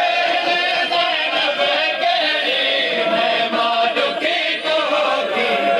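Men's voices chanting a noha, a Shia mourning lament, together as a group in long, drawn-out sung lines.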